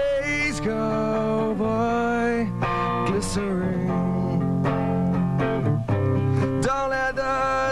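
Rock song playing as background music, with guitar notes sustained throughout.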